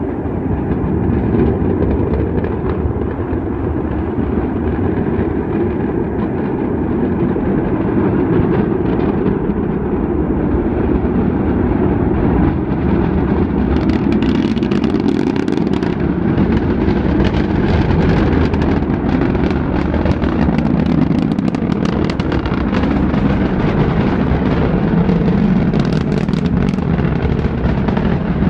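Atlas V rocket's RD-180 first-stage engine heard from miles away during the climb after launch: a loud, steady, deep rumble, with crackling coming in about halfway through.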